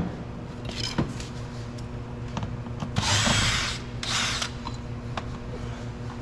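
Screw being backed out of a car door trim panel: a few light clicks, then two short rasping bursts about three and four seconds in.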